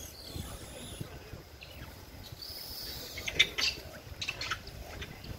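A quick run of short, high chirping calls about halfway through, over a steady low outdoor rumble.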